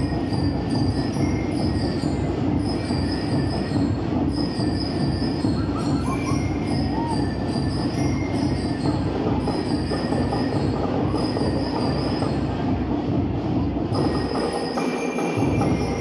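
Loud, distorted music accompanying a majorette routine: a dense, rapid drum beat with short, high, bell-like tones coming and going over it.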